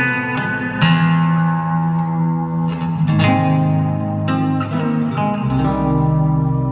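Live nylon-string acoustic-electric guitar through a PA, fingerpicked chords and melody that ring out, with fresh plucked attacks every second or so. A low bass note comes in and sustains about five seconds in.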